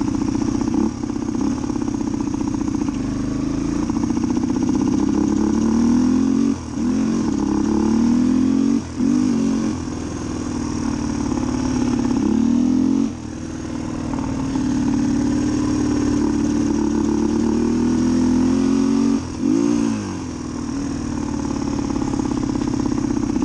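Suzuki DR250 single-cylinder four-stroke dirt bike engine running under load while being ridden. Its note climbs as the throttle is opened, then drops away briefly about four times as the throttle is rolled off and on again.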